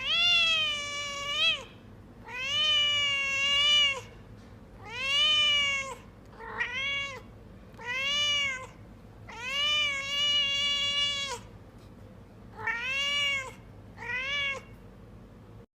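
Domestic cat meowing: eight meows in a row with short gaps between, most over a second long, each rising and then falling in pitch.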